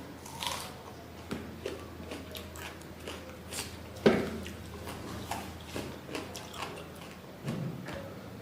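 Close-miked eating sounds: chewing and biting with scattered wet smacks and clicks, and one sharp, loud crunch about four seconds in.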